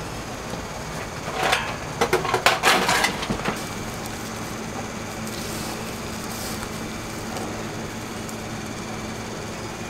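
Kitchen cookware and utensils clattering and scraping in a quick cluster of knocks about a second and a half in, over a steady hum.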